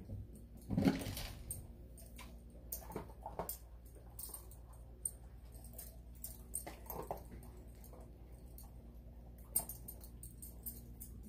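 Husky-type dogs moving about on a tile floor: scattered claw clicks and collar-tag jingles, with one short low dog vocal sound about a second in.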